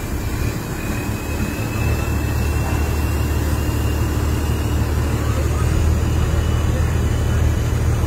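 Rice combine harvester's diesel engine running steadily under load while its unloading auger feeds grain into a truck. The hum deepens and grows louder about two seconds in, with a faint high whine slowly rising in pitch.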